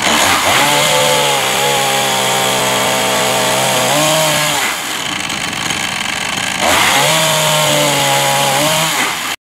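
Chainsaw running at high revs as it plunges into spruce timber to cut a gate mortise. The engine note sags and drops back about halfway through, then comes back up strongly. It cuts off suddenly near the end.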